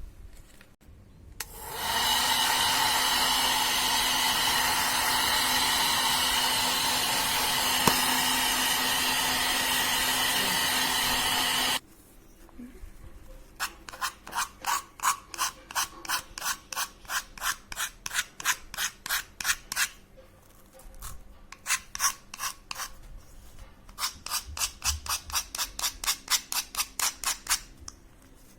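A steady hissing hum starts about a second and a half in and cuts off abruptly about ten seconds later. It is followed by quick, even rubbing strokes, about three to four a second, in two runs with a short pause between them.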